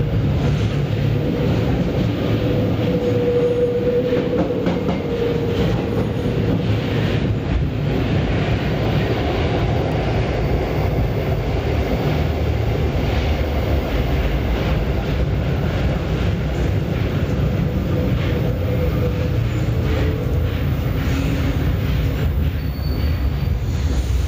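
Metro train heard from inside the car, running on its rails: a steady, loud rumble and rattle of wheels and car body. A faint whine rises above it for a while a few seconds in and again later.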